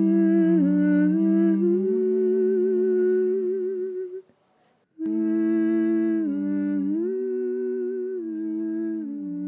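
Voices humming a slow chant melody on long held notes that step up and down. The humming breaks off for under a second about four seconds in, then carries on.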